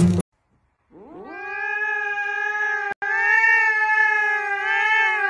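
A domestic cat's long, drawn-out yowl, starting about a second in, rising in pitch at first and then held steady with a slight waver. It breaks off for an instant about three seconds in, then carries on.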